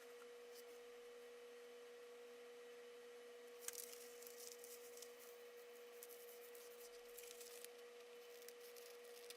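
Near silence with a faint steady hum. Twice near the middle there are brief spells of faint scratching, the first starting with a small click.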